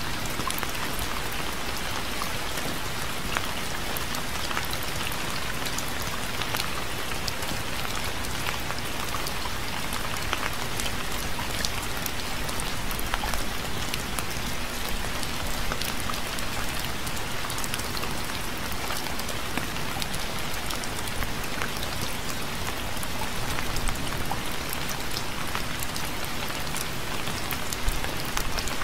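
Steady rain falling, a dense even hiss of drops with many small individual droplet taps on a hard surface.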